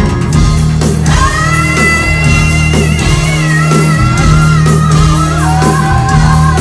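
Live band playing loud through the PA, heard from the crowd, with a steady bass line under long held lead notes that start about a second in and step down in pitch near the end.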